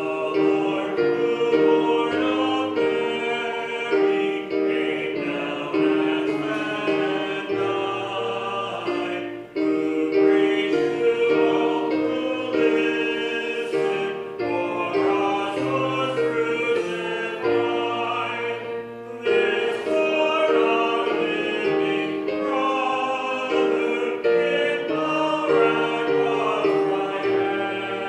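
A hymn sung by voices over held keyboard chords, with short breaks between phrases about every ten seconds.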